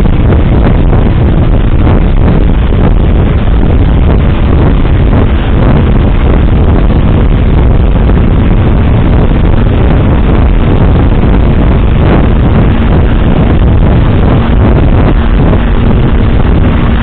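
A moving vehicle's steady engine and road noise, loud and low, with wind rumble on the microphone. A faint steady hum joins about halfway through.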